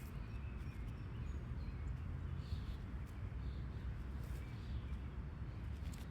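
Outdoor field ambience: a steady low rumble, with faint short bird chirps and a few light clicks.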